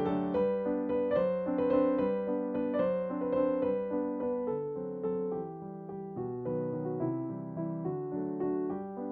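Background piano music: a gentle keyboard melody of quick, evenly struck notes over held chords.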